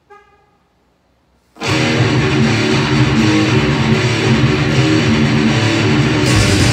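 Jackson electric guitar, played through a small amp or effects unit, comes in loud about a second and a half in after a quiet pause, and plays a continuous riff.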